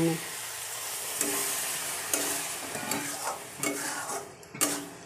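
Onion-tomato masala sizzling in a metal kadhai just after a splash of water, stirred with a metal spatula that scrapes the pan. The sizzle dies down, and a few sharper scrapes and taps of the spatula come near the end.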